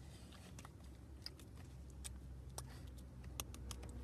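Faint irregular clicks and taps of hands and fingers striking each other during sign language, over a low steady hum.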